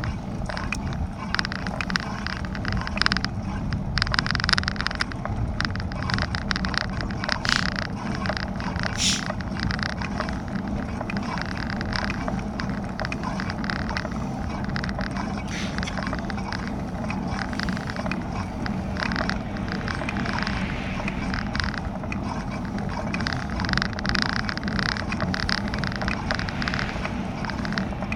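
Riding noise from a bicycle-mounted camera: steady wind and tyre rumble on asphalt, with frequent small rattles and clicks as the bike goes over bumps.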